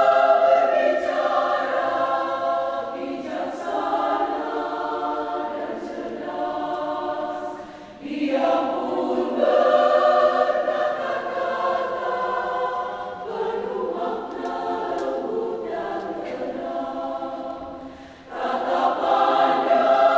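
Women's church choir singing a hymn in several voices, in long held phrases broken by short breaths about 8 and 18 seconds in.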